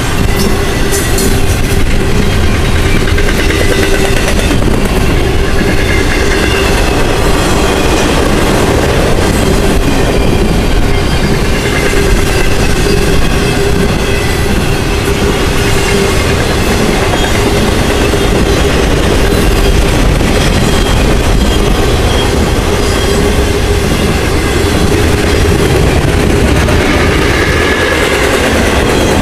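Intermodal freight cars carrying truck trailers and containers rolling past at speed: a loud, steady rumble and clatter of steel wheels on rail with a steady tone over it.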